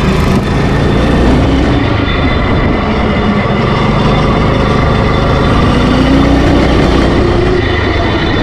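Small gas engine of a homemade trike running under throttle while being ridden. Engine speed climbs slowly through the middle, then drops back near the end.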